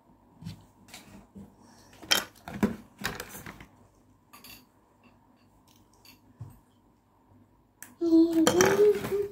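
Hard plastic parts of a Transformers action figure clicking and snapping as it is handled and transformed: a few sharp clicks about two to three seconds in, with fainter ticks after. Near the end a brief, louder pitched vocal sound comes in.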